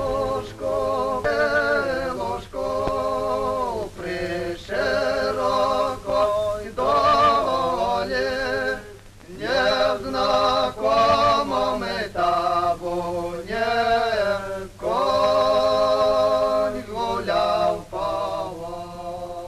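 Unaccompanied singing: one voice sings a slow melody in short phrases, with vibrato on the held notes.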